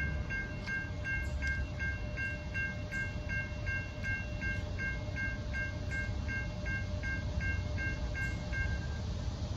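Railroad grade-crossing warning bell dinging steadily, about three rings a second, then stopping shortly before the end as the crossing clears. Under it runs a steady low rumble from the train that has just passed.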